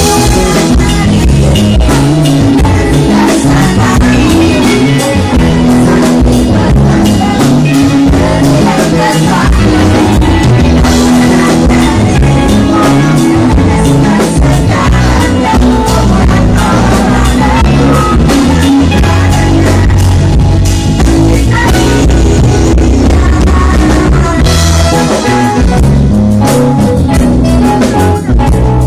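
A live band playing with a steady drum beat while a group of women sing together into microphones, loud throughout.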